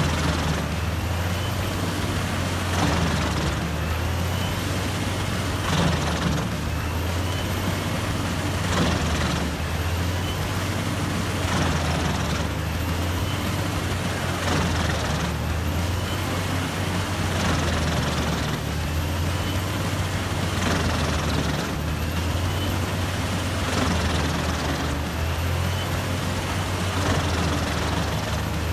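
Large wood chipper running: a steady low machine drone with a short burst of noise about every three seconds.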